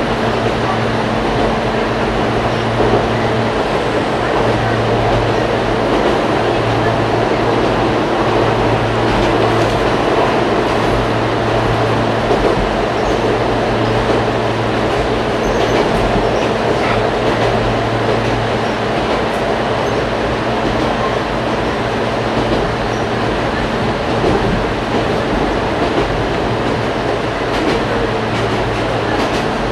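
Ichibata Electric Railway 5000 series electric train running at speed, heard from inside the car: a steady rumble of wheels on the track with a constant low hum underneath.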